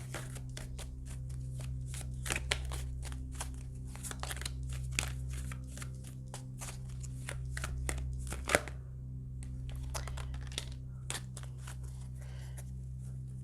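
A deck of oracle cards being shuffled by hand: a run of quick card flicks and rustles, easing off briefly about two-thirds through, over a steady low electrical hum.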